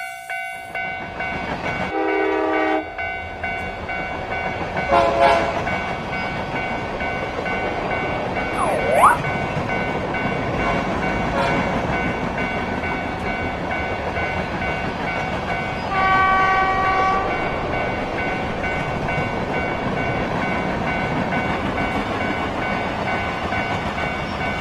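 Train sound effects: a train running with a continuous rumble, over steady ringing tones. Horn blasts sound about two seconds in, about five seconds in and about sixteen seconds in. A short swooping tone dips and rises again around nine seconds in.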